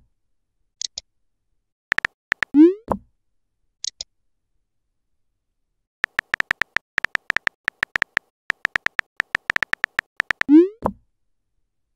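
Texting-app sound effects: runs of rapid, evenly spaced keyboard tap clicks as a message is typed, the longest from about 6 s to 10 s. A rising bloop-like pop sounds twice, about two and a half seconds in and near the end, as a message lands in the chat, and short high chirps come at about 1 s and 4 s.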